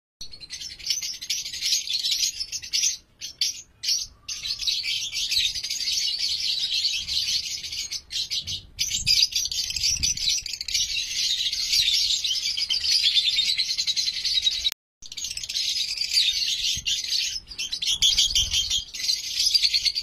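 Fischer's lovebirds chattering: a dense, continuous high-pitched twittering with a few short breaks.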